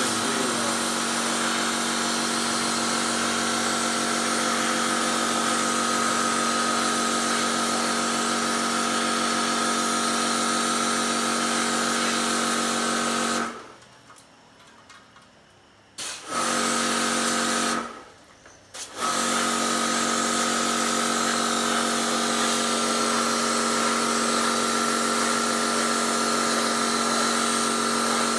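Electric pressure washer running with a steady whine for washing an air conditioner. It cuts out twice, for about two and a half seconds halfway through and again for about a second shortly after, then starts straight back up.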